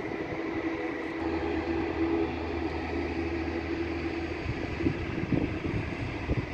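Turboprop airliner's engines and propellers running, a steady hum with several held tones. A deep drone joins about a second in and drops away at about four and a half seconds.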